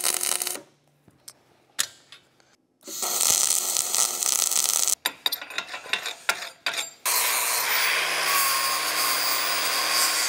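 Metalworking power tool noise in separate runs: a short steady hissing run about three seconds in, a few sharp clicks and knocks after it, then another steady run with a low hum under it.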